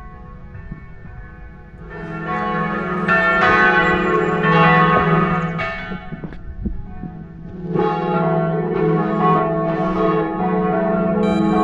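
Church bells ringing, several bells struck over and over in an uneven peal, each stroke ringing on. The ringing comes in loud about two seconds in.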